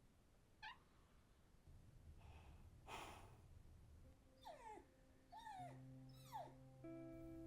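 A cat meowing faintly three times, each call falling in pitch, as held music notes fade in beneath it.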